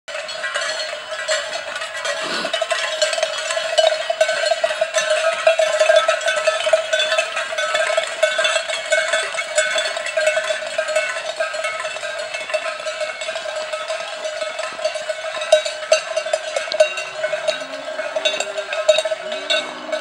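Many cowbells on a herd of cattle clanking together without pause as the animals walk past. Near the end, a few of the cattle call out.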